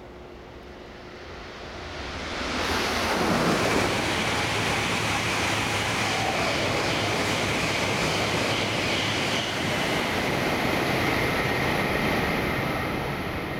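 Shinkansen E4-series and E3-2000-series coupled train passing through the station at speed without stopping: a loud rushing roar of air and wheels on rail swells up about two seconds in, holds steady, and eases slightly near the end.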